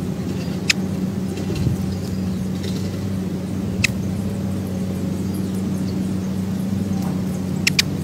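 A steady low mechanical hum, like a running engine, with a few short sharp clicks: one about a second in, one near the middle, and two close together near the end.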